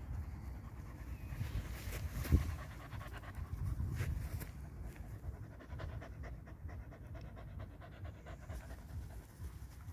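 A small black shaggy dog panting quickly and evenly, close to the microphone. A single thump about two seconds in is the loudest moment.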